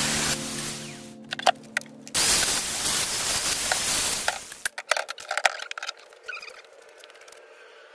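A loud steady rushing noise that cuts off about four and a half seconds in, followed by light clicks and knocks of metal parts being handled on a workbench.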